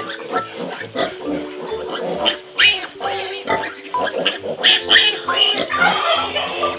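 Piglets squealing as they jostle to nurse at a sow, over background music with a steady beat.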